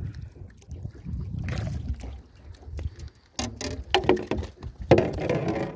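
A hooked corvina (silver croaker) splashing and being hauled up, then, from about three seconds in, a run of sharp knocks and rattles as it is swung into the aluminium boat and flaps against the metal.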